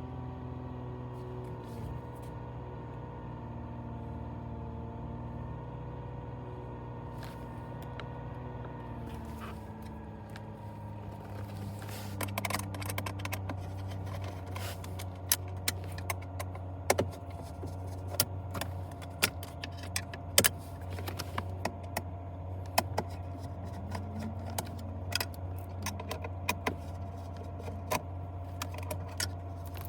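Car engine idling with a steady low hum; from about twelve seconds in, frequent sharp clicks and rattles of parts being handled.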